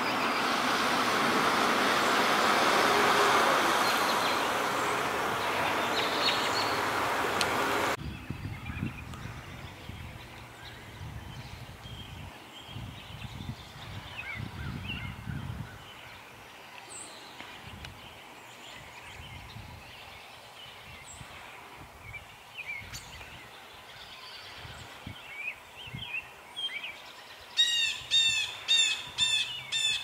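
Steady rushing background noise that cuts off abruptly about a quarter of the way through, followed by faint scattered bird chirps. Near the end a bird gives a run of about six loud, repeated calls, each dropping in pitch.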